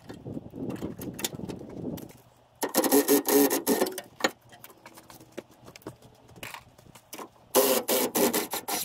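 Cordless impact wrench hammering in two bursts, about a second and a half and about a second long, a few seconds apart, as it undoes bolts on a pickup's rear axle. A softer rough rattling comes before the first burst.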